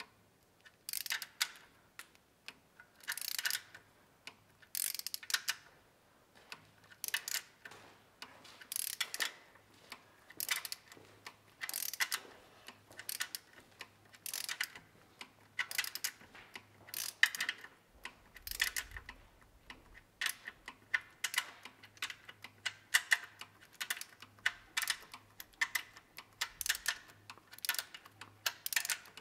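Ratchet wrench clicking in short, uneven runs as the camshaft bearing cap bolts on a BMW M52 cylinder head are tightened to 15 Nm.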